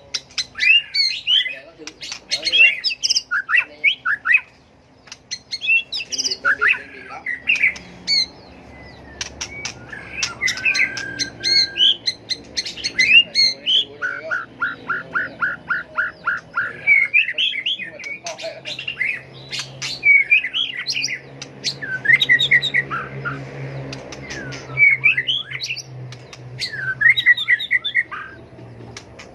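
White-rumped shama singing its varied fighting song: quick whistled phrases mixed with harsh clicks, with a fast run of repeated notes about halfway through.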